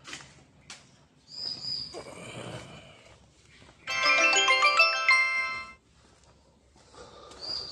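A short electronic melody of many clear stepping tones plays loudly for about two seconds midway, with only faint handling noise before and after it.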